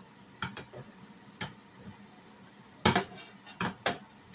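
A utensil tapping and scraping against a nonstick frying pan: about eight short, separate clicks, the loudest few coming close together about three seconds in.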